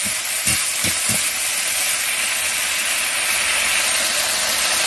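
Chopped leafy greens sizzling in hot oil in a metal kadai: a steady, loud frying hiss, with a few soft knocks in the first second.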